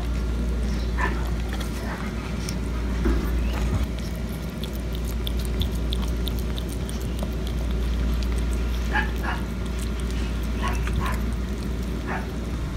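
A dog whimpering in a few short, high whines that come more often near the end, over a steady low rumble.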